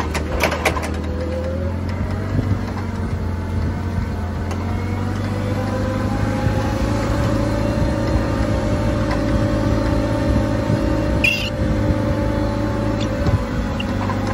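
Forklift engine running steadily under way, its pitch rising slowly and then easing off near the end. A short sharp high sound cuts in about eleven seconds in.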